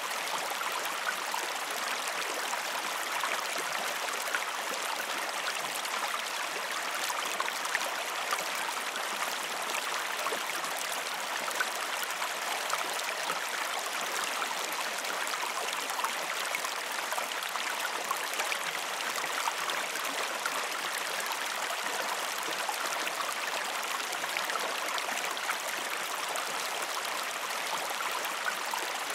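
Creek water flowing steadily, an even rush of running water with small splashes scattered throughout.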